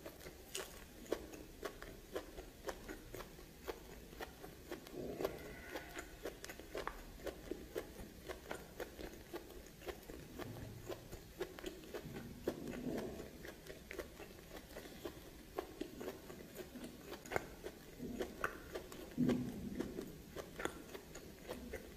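Close-miked eating: chewing and biting with many irregular small clicks and mouth smacks, and a few heavier bites spread through.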